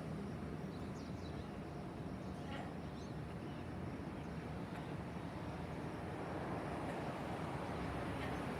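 Urban ambience: a steady hum of distant traffic, with a few faint bird chirps in the first few seconds.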